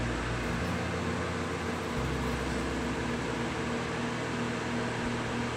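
Steady background hum and hiss, like a running fan or air conditioner.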